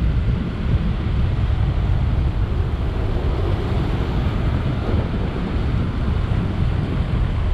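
Wind buffeting the microphone: a steady low rumble with a fainter hiss of sea behind it.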